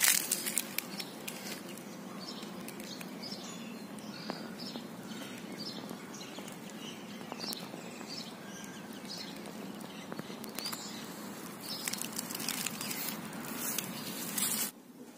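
Outdoor ambience: small birds chirping again and again over a steady hiss, with crackling rustles of dry leaf litter at the start and again near the end. The sound cuts off suddenly just before the end.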